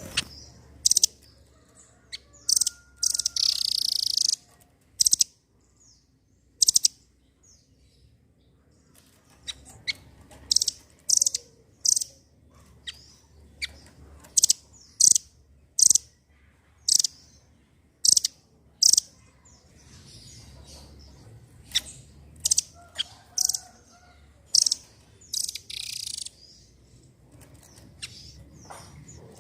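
Nuthatch (the 'rambatan doraemon') calling: sharp, high chirps repeated in irregular runs, broken twice by a longer rapid trill.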